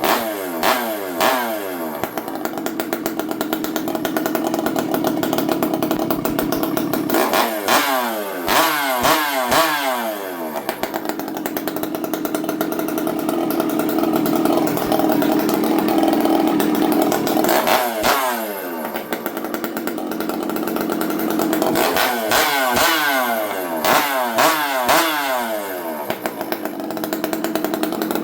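Stihl 064 two-stroke chainsaw running on a first start after a rebuild. It idles steadily and is revved in groups of short throttle blips several times, each one falling quickly back to idle.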